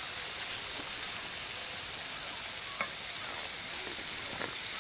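Chicken, chorizo and vegetables sizzling steadily in a frying pan on a small wood-burning stove, with the wooden spatula stirring and knocking twice against the pan in the second half.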